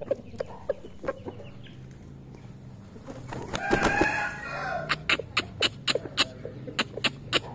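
Gamecock rooster giving a few short low clucks, then flapping its wings with a short pitched call about three and a half seconds in. After that comes a quick series of sharp taps, about three a second, as it pecks at the dry ground.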